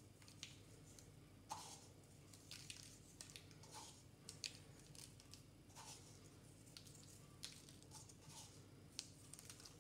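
Near silence broken by faint, scattered soft ticks as sesame seeds are pinched from a small glass jar and sprinkled over chicken skewers.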